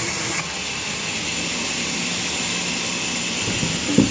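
Sawmill machinery running with a steady noise and a faint high whine, a knock near the end.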